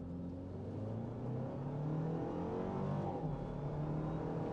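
Toyota Land Cruiser 250's 2.4-litre turbocharged four-cylinder hybrid engine under full-throttle acceleration, heard from inside the cabin. The engine note climbs, drops back about three seconds in at a gear change, then climbs again.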